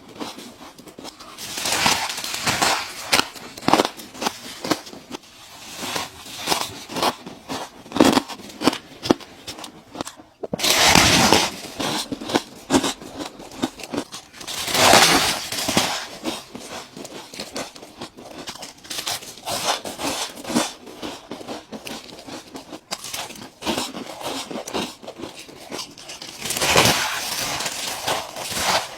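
Ice cubes being bitten and crunched close to the microphone: a run of sharp cracks and crackles, with three louder, longer crunches about a third of the way in, around halfway, and near the end.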